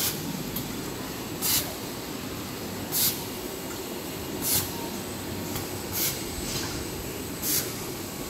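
Kitchen towel paper production line running steadily, with a short, sharp hiss about every second and a half as the machines cycle.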